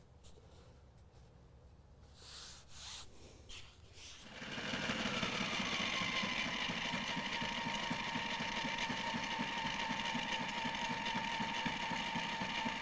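Sewing machine stitching a seam in the sail-cover fabric. It starts about four seconds in and runs steadily, after a few short handling noises.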